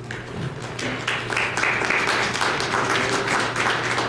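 Audience applauding, rising to full applause about a second in.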